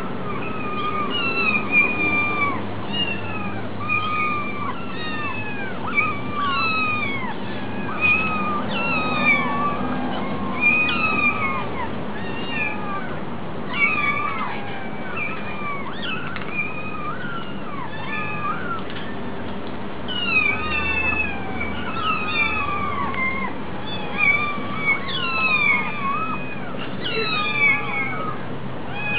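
Several young kittens mewing over and over, many short high cries overlapping one another: hungry kittens begging to be fed.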